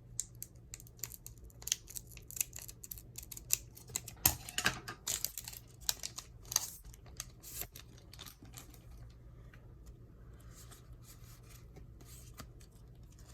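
Yu-Gi-Oh! booster pack wrapper and trading cards being handled: a quick, irregular run of crinkles, small tears and card clicks. It thins out after about eight seconds to faint, sparse rustling.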